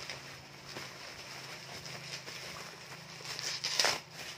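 Bubble wrap crinkling and rustling in hands as a package is unwrapped, with small crackles throughout and one louder rustle a little before the end.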